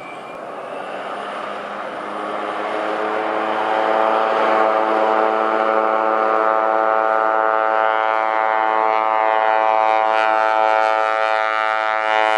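De Havilland Turbine Otter's turboprop engine and propeller on the takeoff run, growing louder over the first few seconds and then holding a steady, loud drone with a strong, even propeller tone.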